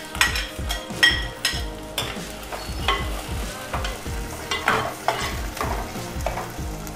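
Sliced onions sizzling as they drop into hot coconut oil in a clay pot, while a steel ladle scrapes them off a plate and clinks repeatedly, about twice a second at first and then more sparsely.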